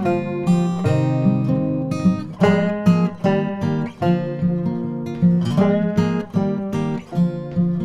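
Background music: an acoustic guitar strumming and picking in a country or bluegrass style with a steady beat.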